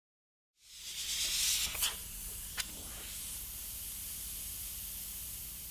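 Airbrush spraying water-based paint: a steady hiss of air and paint that starts about half a second in, is strongest for the first second or so, then holds level, with two short clicks in between.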